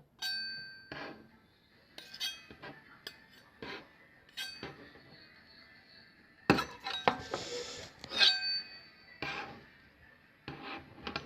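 Hard objects clinking and knocking, about a dozen separate strikes; the first strike and one about eight seconds in ring on briefly with a clear high tone, like glass.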